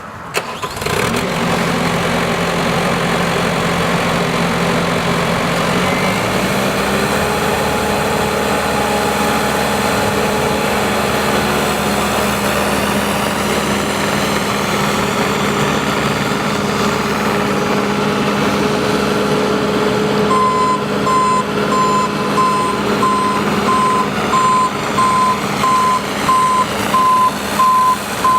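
A Bobcat T590 skid steer's diesel engine runs steadily, its pitch rising slightly about a quarter of the way in. Over the last third its reverse alarm beeps at a steady rate while the machine backs up.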